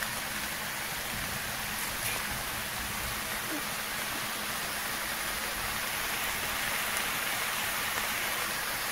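Chopped vegetables and black beans sizzling steadily in a hot stainless steel pan.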